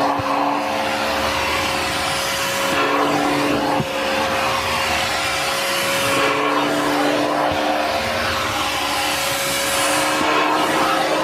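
Vacuum cleaner motor running steadily at a constant pitch, with a hiss of airflow that swells and fades every couple of seconds.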